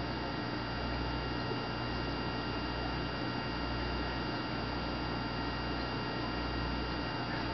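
Steady low electrical hum with an even hiss and a few faint, constant high-pitched tones. It has no distinct events.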